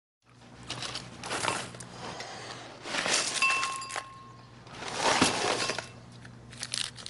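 Dry cereal poured from a box into a ceramic bowl, rattling and clinking in three pours of about a second each, over a low steady hum.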